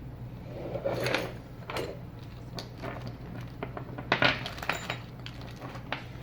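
Plastic parts of a handheld wireless controller being handled and fitted back together: scattered clicks and light clatter, loudest about four seconds in, over a steady low hum.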